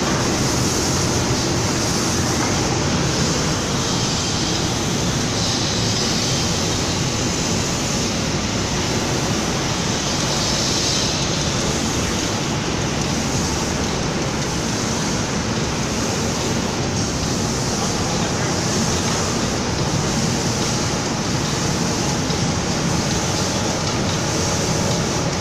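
Automatic door-panel paint spraying machine running, with a steady rush of air and machine noise as its spray guns atomise paint in the booth.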